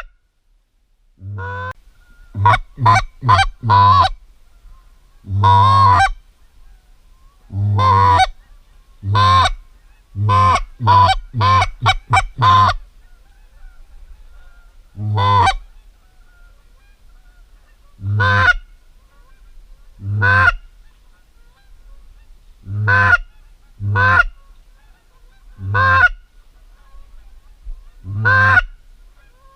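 Goose honks: loud single honks a second or two apart, broken twice by quick runs of four or five honks in a row.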